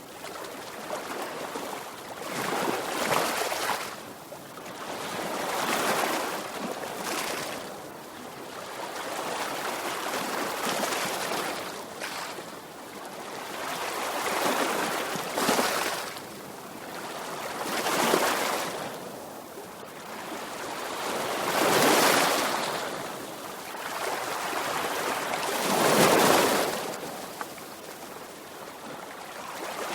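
Sea waves breaking and washing on a shore, one swell of rushing surf every few seconds.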